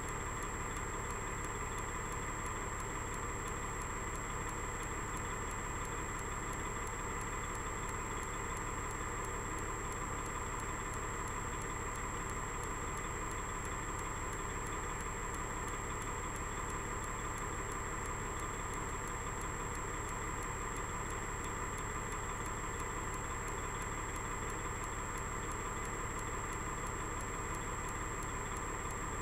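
Kenworth truck's diesel engine idling steadily.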